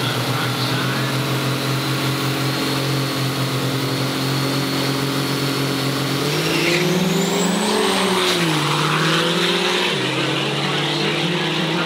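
Diesel drag trucks, one of them a Cummins-powered Dodge, idling steadily at the starting line, then launching about six seconds in as engine pitch climbs and shifts. A high whistle rises as they pull away.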